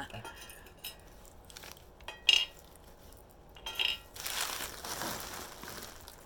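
Small hard objects set down with two sharp clinks, the first the loudest, followed by a couple of seconds of paper or packing material rustling as the next item is unwrapped.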